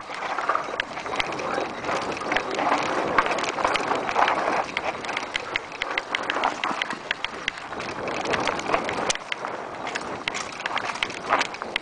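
Mountain bike descending a rough dirt trail at speed: tyres crunching over gravel and loose stones, with the bike rattling in many sharp clicks over a steady rushing noise.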